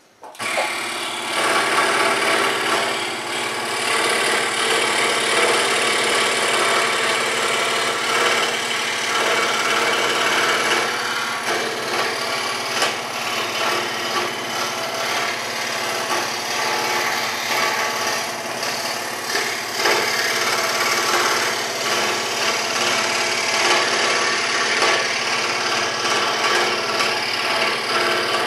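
WEN 3921 16-inch variable-speed scroll saw switched on at the very start, then running steadily with its blade cutting an interior cut through wood.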